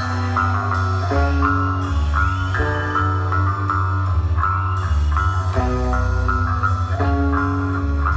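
Live rock band playing: electric guitar riff repeating over a heavy bass guitar line, with drums and cymbals keeping time.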